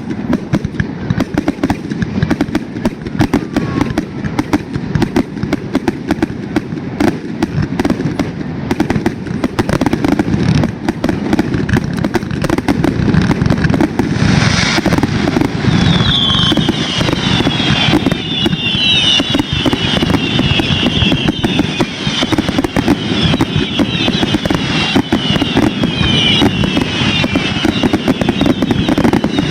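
Fireworks going off in a rapid, continuous barrage of pops, cracks and booms. From about halfway through, a dense run of short, high, falling whistles joins in.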